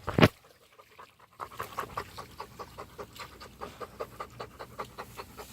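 Dog panting quickly and rhythmically, about five breaths a second, starting a little over a second in. It comes after a single short, loud burst at the very start.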